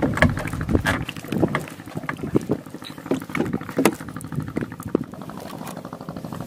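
Irregular wet clicks and crackles from a fishing net with a live octopus in it being handled, over a faint steady background.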